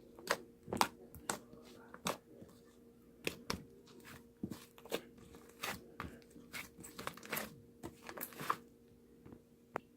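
Slime being squished and poked by hand, making irregular sticky clicks and crackles, a few a second, that die away near the end.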